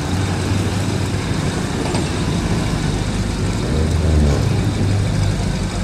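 Steady street traffic noise, vehicle engines running continuously, with a louder low engine rumble swelling about four seconds in.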